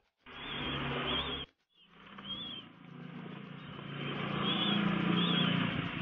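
Small birds chirping now and then over a low engine drone that swells up through the second half.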